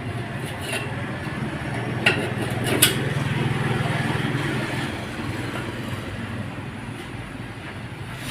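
A motor vehicle's engine runs with a steady low hum that swells for a few seconds and then fades. Two sharp metallic clicks come about two and three seconds in.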